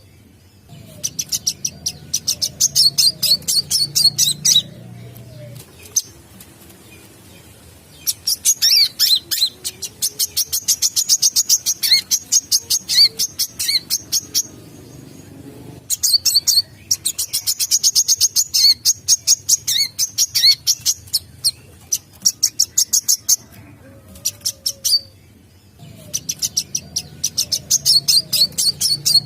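Sunbird song: rapid, high-pitched chirping trills delivered in phrases of several seconds, each followed by a pause of one to three seconds.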